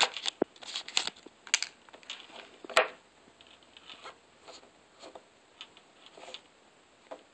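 Paper sleeve sliding off an iPod nano's clear plastic box and the plastic case being handled: irregular rubbing, rustling and clicks, with one sharp click about three seconds in, then a few fainter taps.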